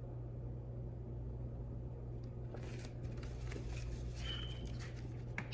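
Steady low room hum, then from about halfway through a run of soft rustles and light clicks as a hardcover picture book is handled and its pages turned.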